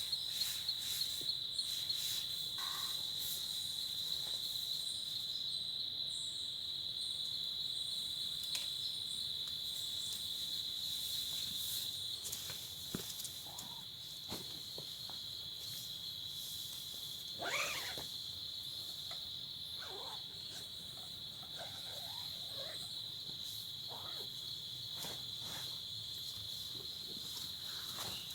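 Steady, high-pitched chorus of crickets or other night insects, with scattered small ticks and one brief louder sound about two-thirds of the way in.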